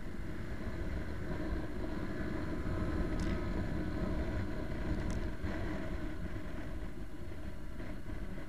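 Motorcycle engine running at a steady road speed, with wind buffeting the bike-mounted camera's microphone.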